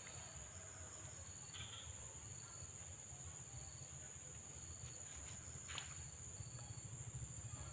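A steady, high-pitched insect drone, with a few faint rustles.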